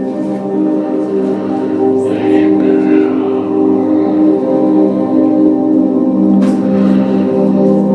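Music of sustained, held tones forming a steady drone, with a voice faintly present beneath it.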